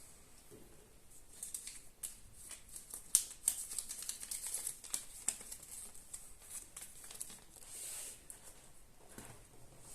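Kinder Surprise egg being unwrapped and opened by hand: thin foil wrapper crinkling, with irregular small clicks and crackles and one sharper snap about three seconds in.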